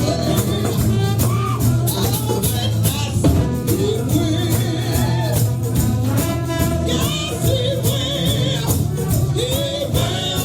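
Gospel band music: voices singing over a strong bass line and percussion with a steady beat.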